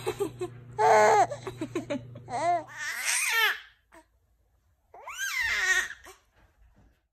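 An infant of about three months cooing and babbling in short pitched sounds, with a higher squeal about three seconds in. After a brief silence, one more drawn-out coo that rises and falls.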